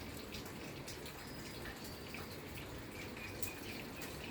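Faint, irregular clicks and taps of a ringneck parakeet's beak nibbling at iron.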